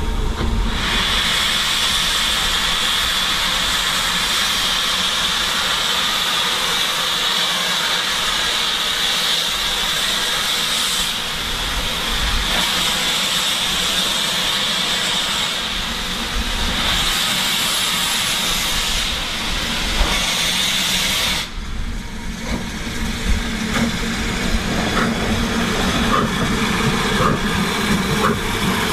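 BR Standard Class 4MT steam locomotive standing and blowing off steam with a loud, steady hiss that cuts off abruptly about 21 seconds in. After that only a quieter low hum with a few faint clicks remains.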